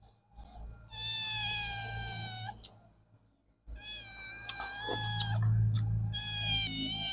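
Domestic cat meowing: two long drawn-out meows, the first starting about a second in and the second starting near the middle and running almost to the end.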